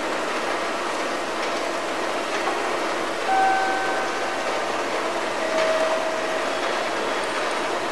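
Railway station ambience between announcements: a steady noisy hum with a couple of short steady tones, one a little after three seconds in and another about five and a half seconds in.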